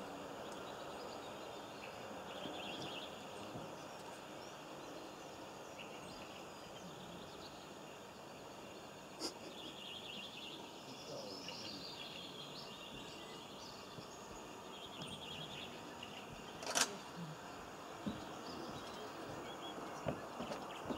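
Hedgehog eating from an open metal tin of stewed meat: faint chewing and licking, with a sharp click about nine seconds in and another a little after sixteen seconds as the tin is knocked.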